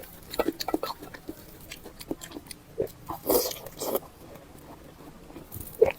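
Close-miked eating sounds: irregular wet chewing, biting and lip smacks, with a longer, louder burst about three seconds in.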